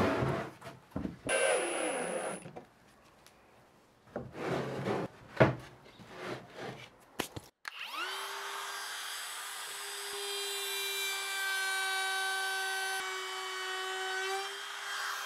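Wooden panels knocked and slid about on a workbench, several sharp knocks. About halfway through, an AEG trim router switches on, its whine rising quickly as it spins up, then running at a steady speed.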